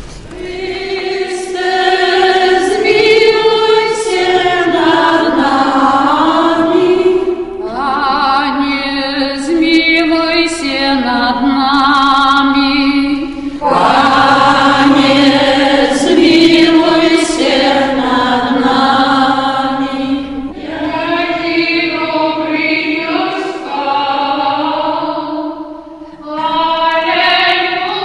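A group of women singing a hymn together in church, in long sung phrases of about six seconds with short breaks for breath between them.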